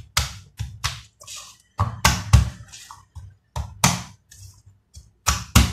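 Kitchen knife and hand knocking against garlic cloves on a wooden cutting board as the cloves are broken from the bulb and crushed under the flat of the blade: about ten sharp, irregular knocks.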